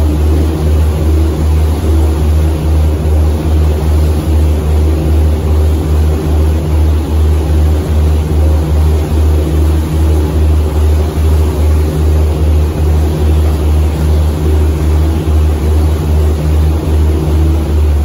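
Boat engine running steadily while the boat is under way, a loud low throb that pulses evenly several times a second.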